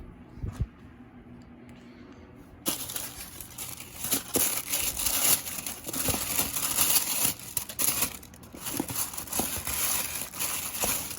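Packaging crinkling and rustling as it is handled, starting a few seconds in and going on loudly, with small crackles throughout.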